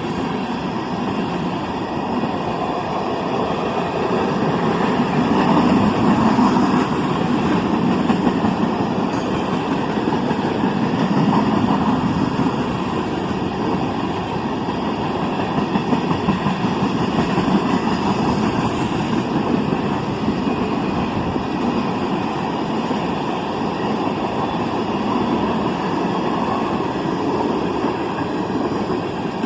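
Empty ethanol tank cars of a CSX freight train rolling past, with a steady noise of wheels on the rails.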